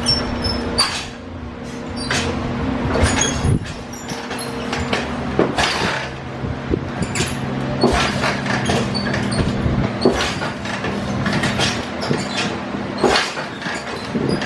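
1980 Harley-Davidson Shovelhead V-twin running after a carburettor adjustment, its note dipping briefly twice early on. Many sharp irregular clicks and pops sound over it.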